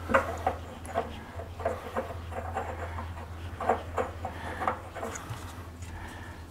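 A 3/4-inch brass tee being screwed by hand onto a taped threaded fitting: irregular light clicks and rubs, several a second, over a steady low hum.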